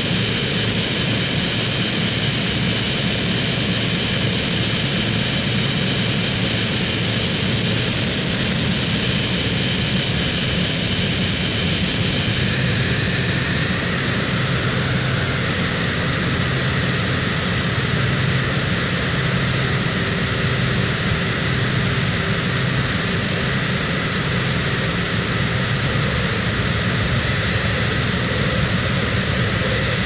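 Harsh noise wall: a steady, unbroken mass of dense distorted noise with a deep rumble underneath and hiss on top. A thin high whine inside it shifts lower in pitch about twelve seconds in.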